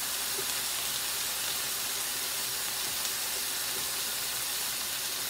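Steady sizzling hiss of food cooking on the hot plate of an electric grill.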